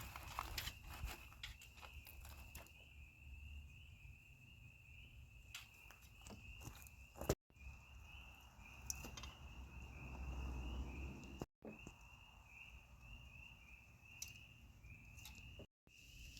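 Insects chirring in a steady, pulsing chorus, with a few crunching footsteps in the first seconds. The sound drops out briefly three times.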